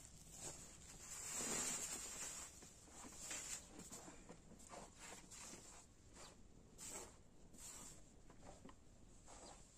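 Hands rubbing and raking through dry flour mixed with seeds in a metal basin: a soft, grainy rustling made of many short scrapes, louder about a second in.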